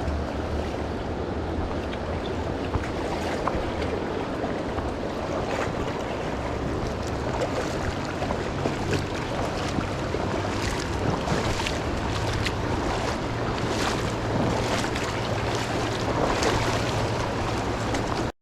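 Steady rushing of a river's flowing water, with low wind rumble on the microphone and scattered small clicks and knocks in the second half.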